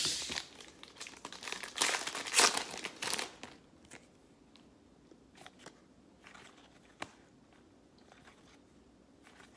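Crinkling of a trading-card pack's wrapper being handled, in several rustling bursts over the first three seconds or so, then quieter card handling with a few light clicks.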